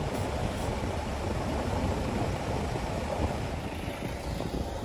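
Diesel engines of a line of decorated Japanese trucks running in slow traffic, a steady low rumble, with a box truck rolling past close by near the end.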